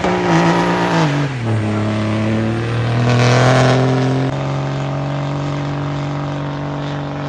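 Car engine revving hard and held at high revs, its pitch dropping about a second in and then holding steady.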